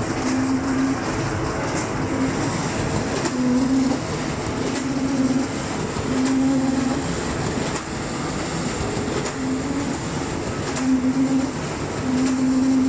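Vacuum-transfer four-colour carton printing and die-cutting machine running: steady machine noise with faint ticks, and a short low hum that comes and goes every second or two.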